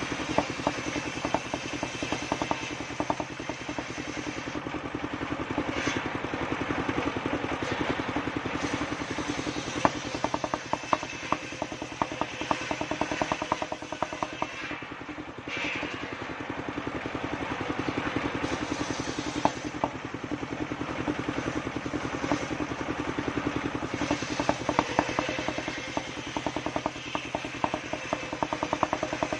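Engine-driven homemade circular sawmill running steadily, its motor putting out rapid even firing pulses, with intermittent clattering.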